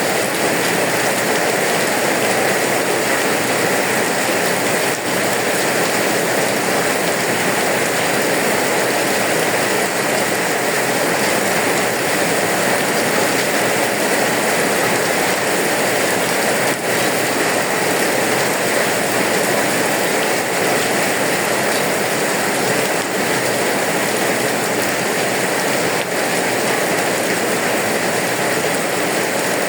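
Steady rain falling and pattering on surfaces, an even, unbroken hiss.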